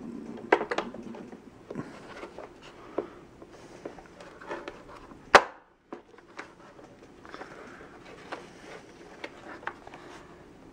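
Hard plastic parts of a Bissell compact upright vacuum being handled and pressed together: scattered clicks and rubbing, with one sharp, loud click about five seconds in.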